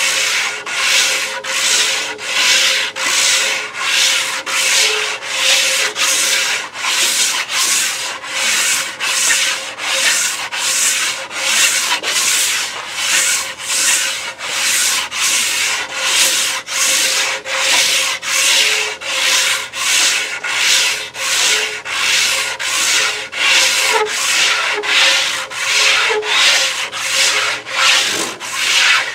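A homemade manual belt sander's 150-grit belt rasping along an ash longbow limb in steady back-and-forth hand strokes, about one a second, taking down the limb so it will bend correctly.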